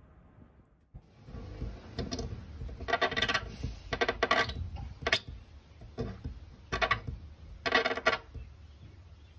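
A dog snapping and mouthing at a glass door, its teeth and muzzle clacking and rubbing on the pane in a series of short bursts about a second apart.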